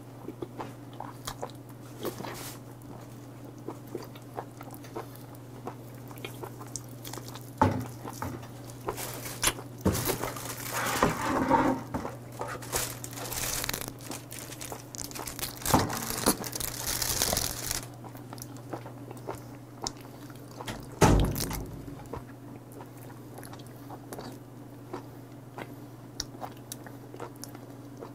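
Close-up eating sounds of a person chewing live octopus (sannakji), with wet clicks and crunchy bites coming in bursts through the middle, over a steady low hum. One heavy thump comes about three-quarters of the way through.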